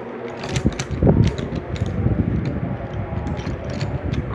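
Drawing pens or coloured pencils being handled close to the microphone: sharp clicks and rattles, with a rough, uneven rumble of handling and rubbing. This fits picking out a yellow for colouring.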